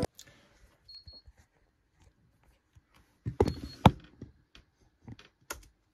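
Knocks and clicks of a camera being handled and set in place, loudest in a cluster a little past three seconds in. A short, thin, high beep of unknown origin sounds about a second in and again at about three and a half seconds.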